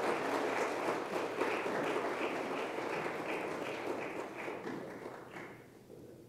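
Audience applauding, many hands clapping steadily, fading away about five seconds in.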